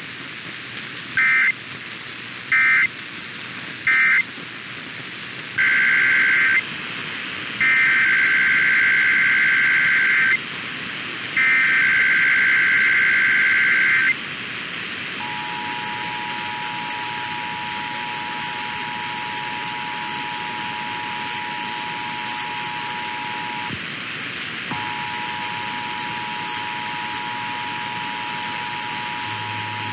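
Emergency Alert System tones over broadcast radio with steady hiss underneath. First come three short end-of-message data bursts, then three longer SAME header bursts of rapid two-tone data squawks. Then the steady two-tone EAS attention signal starts, breaks off briefly about two-thirds of the way through, and resumes, announcing the next station's monthly test.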